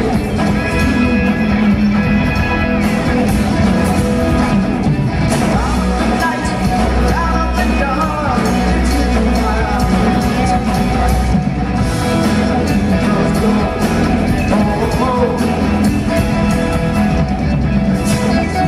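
Live rock band playing loud: electric guitar, bass guitar and drums, with a voice singing over them.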